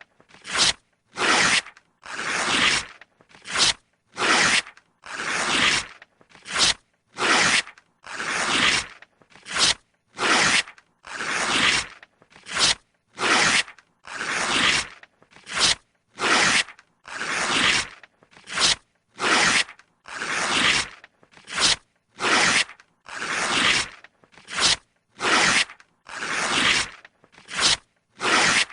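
Paper being torn again and again, about one rip a second. Each rip is a short rasping tear, some brief and some close to a second long, many swelling and then stopping sharply, with a clean silence between rips.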